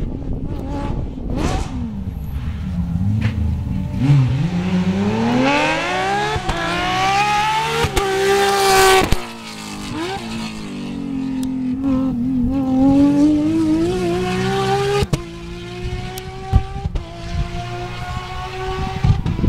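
Rally car engine accelerating hard, its pitch climbing through the gears. It cuts sharply about nine seconds in and again about fifteen seconds in, as it shifts up, then runs on steadily.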